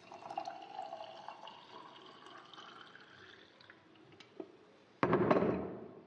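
Water being poured into a glass over chia seeds, its pitch rising as the glass fills for about three and a half seconds. Near the end comes a brief, louder noise of under a second.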